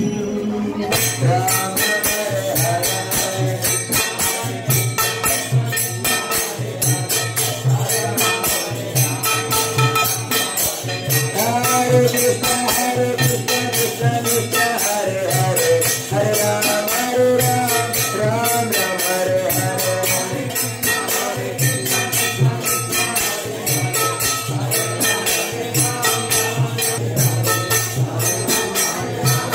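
Devotional kirtan: group chanting carried on a fast, steady jingle of small hand cymbals (kartals), with a low steady tone underneath. It starts about a second in.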